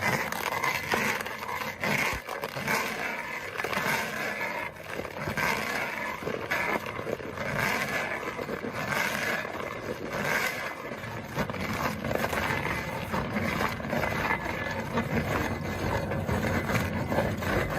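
Twin-shaft industrial shredder running under load, a continuous grinding crunch full of sharp cracks as material is torn apart between its rotors. A heavier low rumble comes in after about eleven seconds.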